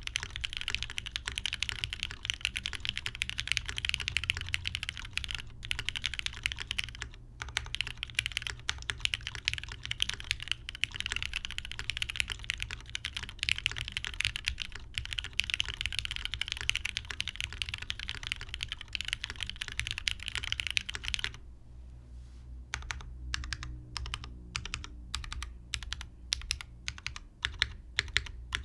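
Typing on a TGR GSK 910 custom mechanical keyboard with broken-in, Krytox 205g0-lubed Cherry MX Black linear switches, a top-mounted polycarbonate plate and GMK keycaps: fast, continuous keystrokes. Near the end the typing slows to separate, evenly spaced key presses.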